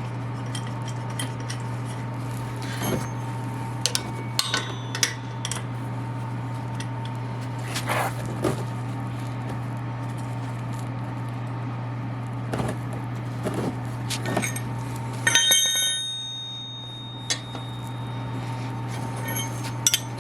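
Loose metal parts and hand tools clicking and clinking while bolts are put in and started on the motorcycle's oil filter cover, with a ringing metallic clink about fifteen seconds in. A steady low hum runs underneath.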